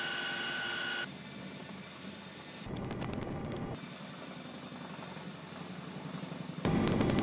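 CH-47 Chinook helicopter running noise: a steady rushing sound with a high-pitched whine, changing abruptly at several cuts. It gets louder and fuller near the end.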